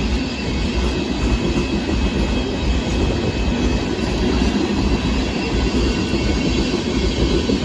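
Freight cars of a Union Pacific sand train rolling past: a steady, loud rumble of steel wheels on rail, with a faint high squeal from the wheels.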